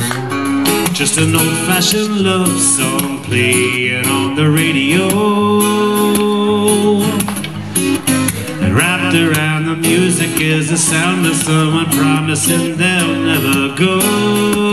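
Acoustic guitar strummed and picked in a live solo performance, heard through the PA, with a man singing over it at times.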